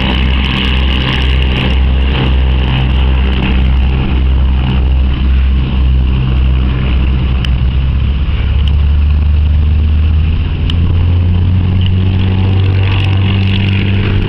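Twin six-cylinder piston engines of a Beechcraft B55 Baron running at taxi power, with a throb that pulses about twice a second. About eight to ten seconds in, the engine note rises as power changes.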